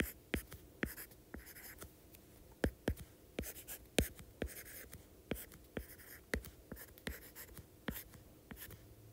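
Stylus writing on a tablet's glass screen: irregular sharp taps as the hard tip touches down, with faint scratchy strokes between them.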